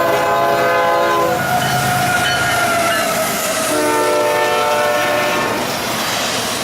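A freight locomotive's air horn sounds twice over the noise of the passing train's wheels on the rails. The first blast is at the start; the second, longer blast comes a few seconds later, slightly lower in pitch as the locomotive passes the listener.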